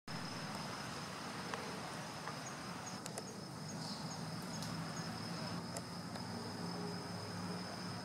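Steady, high-pitched insect trill, cricket-like, over a low background rumble and hiss, with a few faint sharp ticks in the middle.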